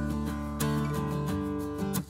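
Background music: a melody of plucked notes changing about every half second.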